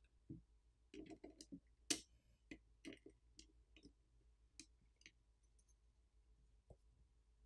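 Faint, scattered clicks and ticks of small metal repair tools touching phone parts during disassembly, the sharpest just before two seconds in, mostly in the first five seconds.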